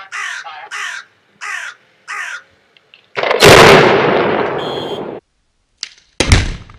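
A crow caws about five times, then a large explosive charge detonates about three seconds in: a sudden, very loud blast that rumbles and fades for about two seconds before cutting off. Near the end, a second sudden loud blast with a deep thud comes in.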